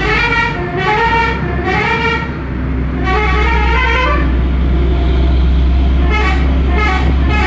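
Basuri 'telolet' multi-tone air horn on a Hino 500 truck playing its sliding, rising melody in quick short blasts, then one longer rising note, then more blasts near the end. The truck's diesel engine runs steadily underneath, heard plainly in the gap after about four seconds.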